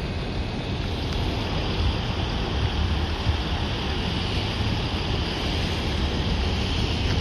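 Wind buffeting the microphone outdoors: a steady low rumble with a hiss above it.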